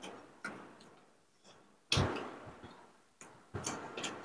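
Close eating sounds of a meal taken by hand: a few short wet clicks and smacks of chewing, the loudest about two seconds in.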